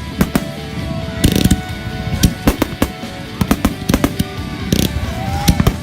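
Many fireworks going off at once: a rapid, irregular string of bangs and pops, with high crackling fizz about a second in and again near the end.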